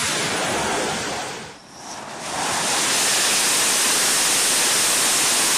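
F/A-18 Super Hornet's twin GE F414 jet engines, a loud, steady rush of jet noise. It dips briefly about a second and a half in, then comes back louder and holds steady: the engines at full power on touchdown during an arrested carrier landing.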